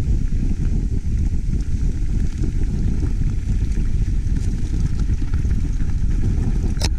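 Wind buffeting the microphone of a mountain-bike camera on a downhill run: a steady low rumble, with one sharp click just before the end.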